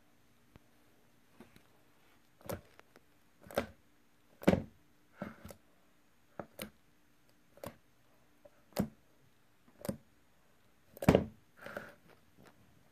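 Slime being squeezed and poked by hand: a dozen or so short, irregularly spaced pops and clicks, the loudest about midway and near the end.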